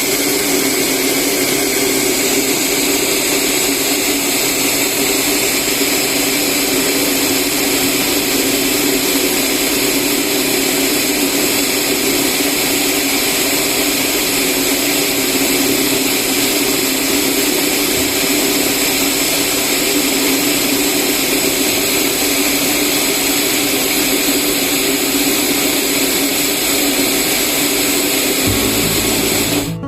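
Household electric rice polishing machine running steadily, milling brown rice into white rice: a loud, even motor hum with a high whine over it.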